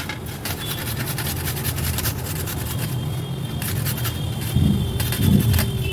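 Raw turmeric root being grated into a paste: repeated scratchy scraping strokes over a steady low rumble.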